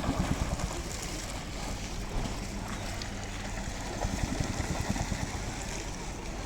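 Wind buffeting the microphone in irregular low rumbles over a steady outdoor hiss.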